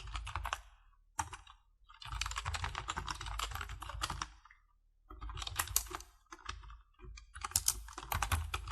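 Computer keyboard typing in quick bursts of keystrokes with short pauses between them, as an email address and password are entered into a form.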